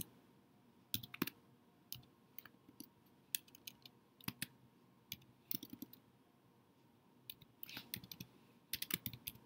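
Computer keyboard being typed on: irregular light key clicks in short runs, with a pause of about a second and a half in the middle.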